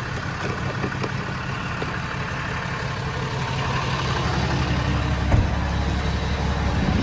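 Tow truck engine idling with a steady low hum that grows a little louder, with a single short knock about five seconds in.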